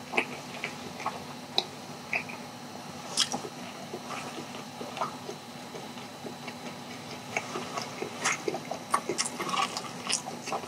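Close-miked chewing: a mouthful of sauced chicken being eaten, heard as scattered short mouth clicks and smacks.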